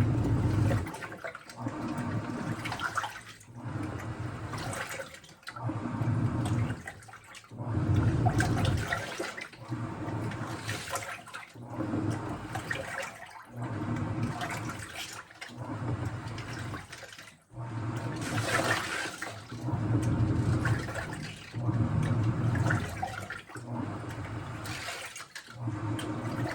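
Washing machine drum turning with water and laundry sloshing inside, swelling and easing in a steady rhythm of about one surge every two seconds, over a low motor hum.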